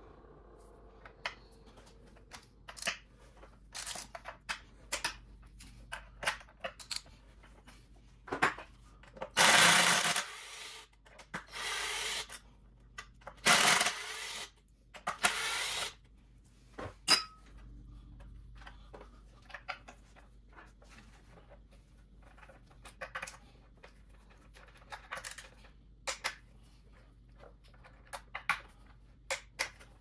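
Cordless drill-driver run in about four short bursts near the middle, backing out the Phillips screws of the retaining plate on an electric unicycle's hub motor. Light clicks and knocks of screws and tools being handled come in between and after the bursts.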